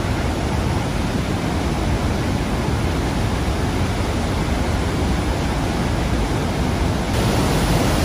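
The Rhine Falls' steady roar of falling water, a dense rushing noise with nothing else standing out; it grows a little louder about seven seconds in.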